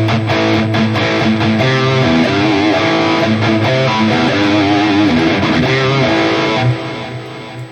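High-gain distorted electric guitar played through a Marshall amp model on a digital modeling unit, with notes bent and wavering with vibrato. The playing stops near the end, leaving a delay tail that trails off.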